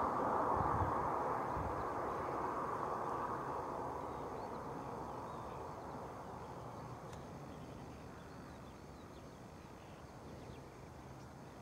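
Road noise of a vehicle going by and fading steadily away, leaving quiet countryside ambience with a few faint bird chirps.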